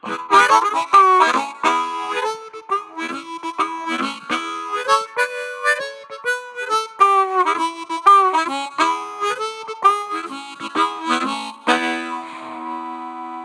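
Solo harmonica played cupped against a microphone: a quick run of notes with many bent, sliding pitches, ending on a long held chord near the end.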